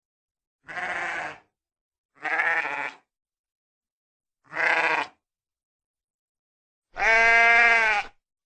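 Sheep bleating four times, separate calls with silence between them; the last call, near the end, is the longest, lasting about a second.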